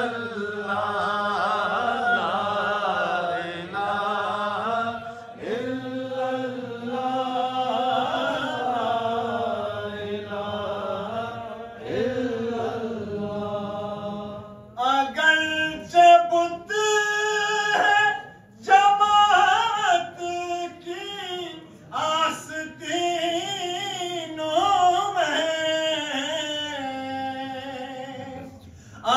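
A man's voice chanting a devotional Urdu poem through lectern microphones, in long held, wavering notes. About halfway through, the delivery breaks into shorter phrases with brief pauses.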